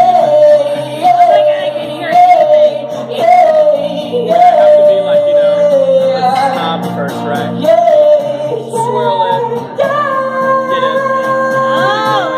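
Live solo song: a man sings a wordless high vocal line over strummed acoustic guitar, a short falling phrase repeating about once a second, then a long held high note over the last few seconds.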